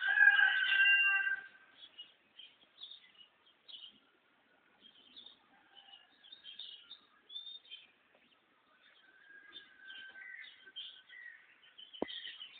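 Small birds chirping in scattered short, high calls. A loud, drawn-out pitched call lasting about a second and a half opens the stretch, and a single sharp click comes near the end.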